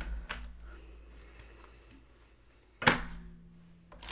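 Tarot deck being handled for shuffling on a wooden desk: a soft knock just after the start and a sharp, loud knock near three seconds in, with faint card rustle between.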